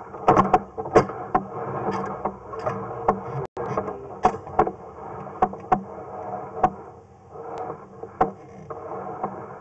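Sewer inspection camera's push cable being pulled quickly back up a roof vent pipe: irregular sharp clicks and knocks, one or two a second, over a steady scraping rustle as the cable is hauled in.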